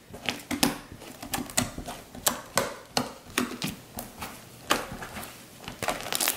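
Ice slime (clear slime mixed with instant snow) being kneaded and folded by hand, giving a string of short wet clicks and pops, about three a second, with a quicker flurry near the end.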